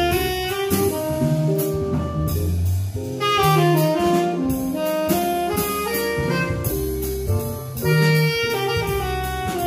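A small jazz band playing live: a saxophone carries the melody over drum kit with cymbals, keyboard and bass guitar.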